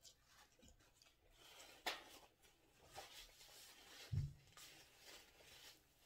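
Faint handling sounds: a paper napkin rustling as hands are wiped, with a sharp click about two seconds in and a single low thump a little after four seconds.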